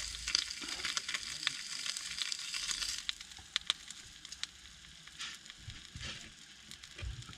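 Bacon frying in a pan, sizzling with scattered pops; the sizzle grows quieter about three seconds in.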